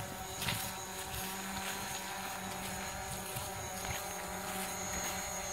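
DJI Mavic Pro quadcopter drone flying low, its propellers giving a steady buzzing hum of several fixed pitches.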